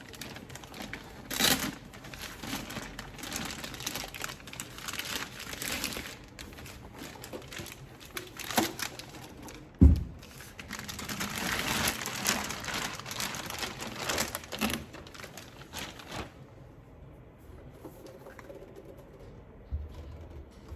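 Plastic packaging crinkling and rustling as it is handled, with scattered clicks and one sharp thump about ten seconds in. The crinkling stops about three-quarters of the way through, leaving only faint handling noise.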